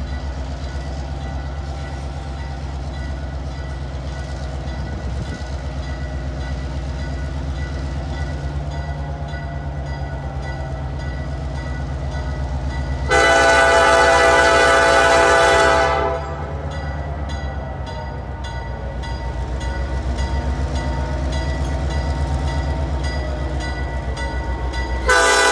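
EMD GP-7 diesel locomotive approaching with its engine rumbling steadily. Its air horn sounds one long blast about halfway through and starts another just before the end, a horn signal for the road crossing ahead.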